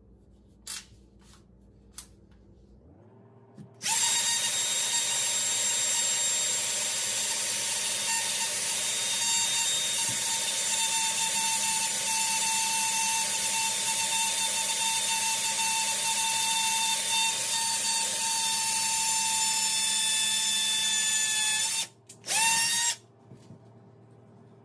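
Cordless drill with a long bit running steadily in a hole in a granite countertop. It spins up about three seconds in and holds a steady high whine for about eighteen seconds, then stops. A short second burst follows a moment later.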